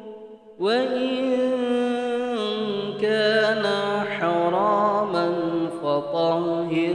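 A man's voice chanting an Arabic supplication (dua) in a slow, melodic recitation, with long held notes that bend and ornament. The voice comes in after a short breath about half a second in.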